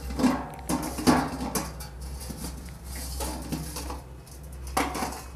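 Stainless steel ladle and plate clinking and knocking against each other and a plastic water bucket in a series of irregular sharp clinks, as a ladleful of water is taken.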